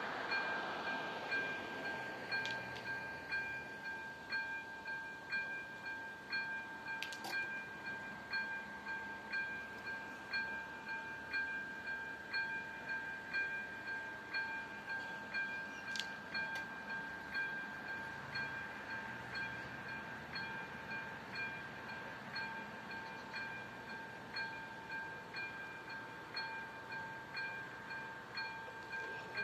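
Electronic warning bell of a Czech railway level crossing ringing in a steady, even rhythm of repeated dings while the crossing is closed. Two brief clicks come through partway in.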